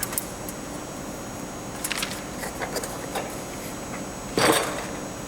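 Steady room hum with a few light clicks, then a short, louder rustle about four and a half seconds in.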